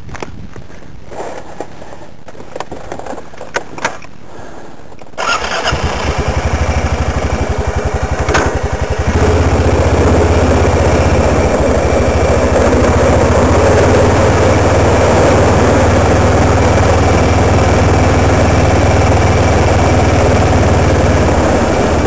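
A quad ATV engine starting up about five seconds in and running at idle, then getting louder about nine seconds in as the quad pulls away, and running steadily after that.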